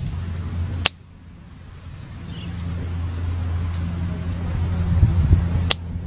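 Wind rumbling on the microphone, a steady low rumble that slowly grows louder, broken by two sharp clicks about a second in and near the end.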